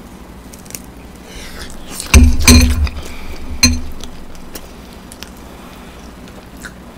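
Metal tongs clinking and knocking against a pan: a quick cluster of sharp clanks with a short ring about two seconds in, then one more clank a second later.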